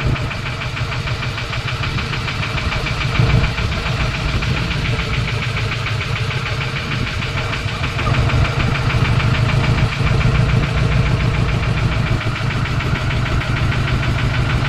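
Fishing boat's engine running steadily with a fast, even knocking beat.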